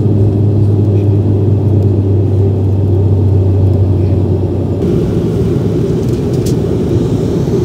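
Turboprop airliner's engines and propellers droning steadily in the cabin during the climb after takeoff, with a strong low propeller hum. About five seconds in the sound changes abruptly and the low hum drops away.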